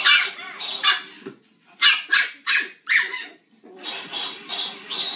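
Puppy barking at a toy in a string of short, high yaps, about a dozen in five seconds in quick clusters, over a steady low hum.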